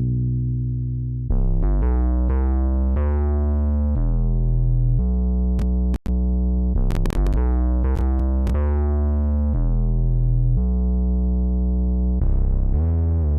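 Synthesizer music: sustained keyboard-like chords over deep bass notes, changing about once a second. The sound cuts out for an instant about six seconds in, with a few sharp clicks over the next two and a half seconds.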